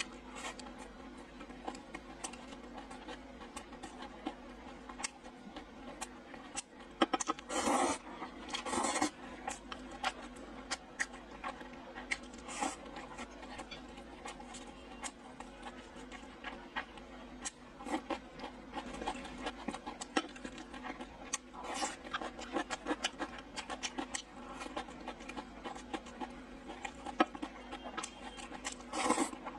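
Close-up mouth sounds of a person eating rice, snow peas and glass noodles with chopsticks: steady wet chewing and lip-smacking clicks, with a few louder bursts about eight seconds in and near the end.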